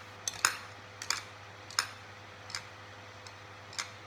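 A spoon knocking against a table: a series of sharp clicks, about one every two-thirds of a second, the later ones fainter.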